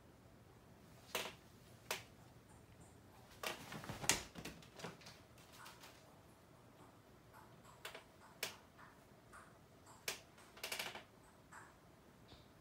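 Sporadic light clicks and knocks, with a cluster of taps about four seconds in and a quick rattling run of taps near the end.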